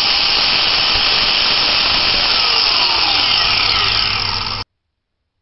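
Handheld angle grinder running with a loud, steady grinding hiss, which cuts off abruptly about four and a half seconds in.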